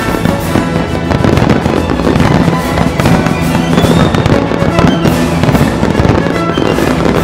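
Fireworks display firing a rapid, dense run of bursts and crackling bangs over loud accompanying music.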